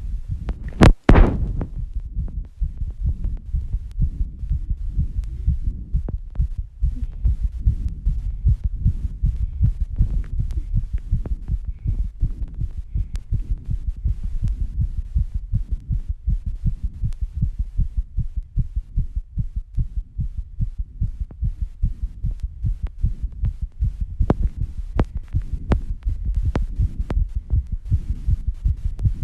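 A person's heartbeat picked up close against the chest, a fast run of low thumps with the heart rate raised after squats and rebreathing. A loud knock about a second in.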